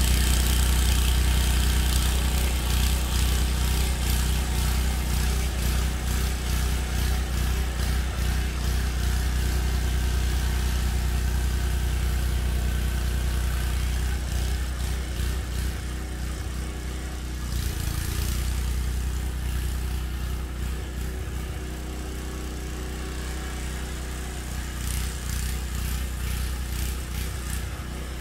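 Gas snow blower engine running steadily while clearing snow, its level easing down gradually through the second half.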